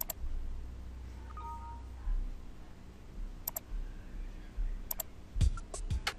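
A few sharp computer-mouse clicks. Near the end, music with low thumping beats starts up.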